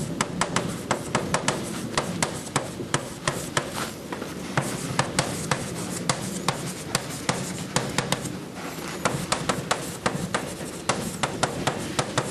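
Chalk writing on a blackboard: quick, irregular taps and clicks of the chalk striking the board, several a second, with short pauses between words, over a low steady room hum.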